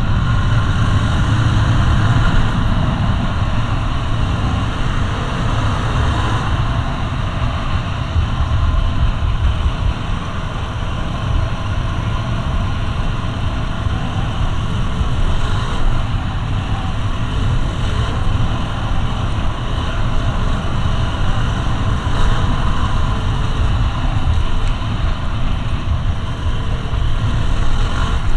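Yamaha WR250R dual-sport motorcycle's single-cylinder four-stroke engine running under way, heard as a loud, steady drone with no break.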